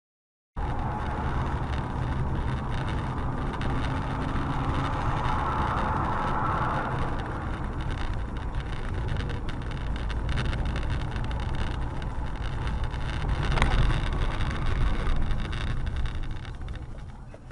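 Steady engine and road noise of a car driving, heard through a dashboard camera, with a faint whine in the first few seconds. Near the end comes a single sharp knock, then the sound fades out.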